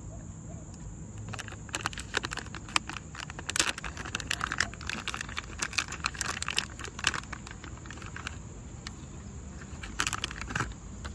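Irregular small clicks and rattles of a plastic puddle-light unit and its parts being handled, in clusters a second or so in and again near the end, over a steady high chirping of insects.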